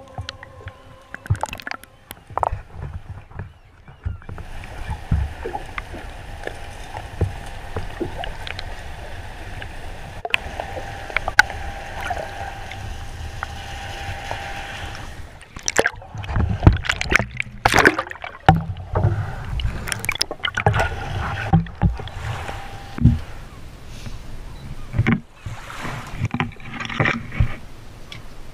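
Water heard from underwater through a waterproof camera housing: a muffled, steady sloshing with a faint hum. From about halfway, irregular splashes and sharp knocks of handling take over as things break the surface and come aboard the boat.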